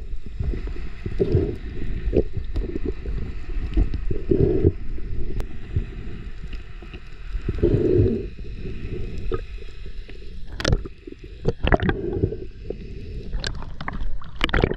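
Underwater sound through a submerged action camera: a steady low rumble of water with muffled swells while a speared triggerfish is handled, then sharp clicks and splashy ticks in the last few seconds near the surface.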